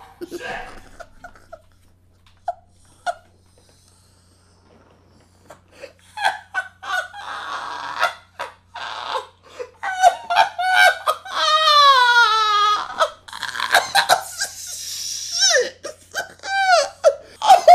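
A man laughing hysterically. After a few near-silent seconds the laughter breaks out about six seconds in and builds into high-pitched squeals and breathless wheezing.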